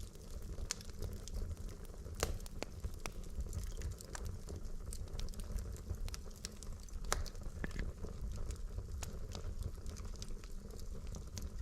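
Wood logs burning in a fireplace: a steady low rumble of flame with irregular sharp crackles and pops, the strongest about two and seven seconds in.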